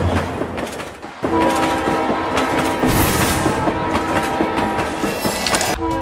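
Train horn sounding one long steady blast, starting about a second in and stopping just before the end, over the rumble and clickety-clack of train wheels on rail joints.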